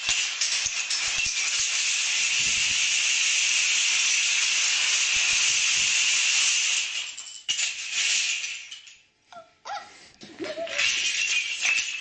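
Thousands of wooden building planks clattering as a tall plank tower collapses in a long cascade; the dense clatter thins and dies out about seven seconds in. A person laughs a little later, and more planks clatter near the end.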